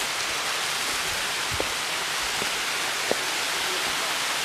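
Steady hiss of rushing water from a waterfall, with two faint knocks about a second and a half and three seconds in.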